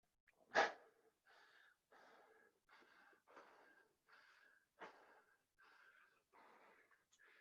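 A man breathing hard and fast from the exertion of burpees: short, rhythmic breaths about every two-thirds of a second, with two sharper, louder ones, about half a second in and near five seconds.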